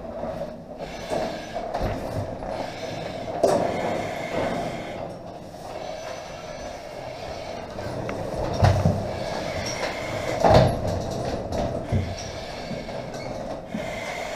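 Metal rattling and knocking from a firefighter in breathing apparatus crawling through a wire-mesh cage training course, with sharp knocks against the cage about three and a half, nine and ten and a half seconds in, over a steady noise.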